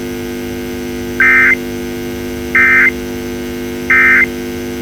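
Emergency Alert System end-of-message code: three short, identical bursts of warbling data tones, about a second and a third apart. These are the 'NNNN' SAME bursts that close an alert. A steady electrical hum runs underneath.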